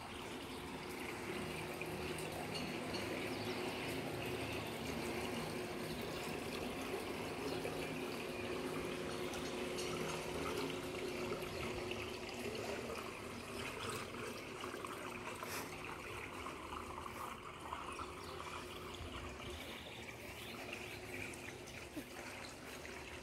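Swimming pool water trickling steadily into its grated overflow gutter, with a faint steady hum under it.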